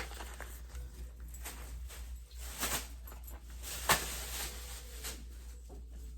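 Small items being handled: scattered light clicks and rustles, with one sharp click about four seconds in, over a steady low hum.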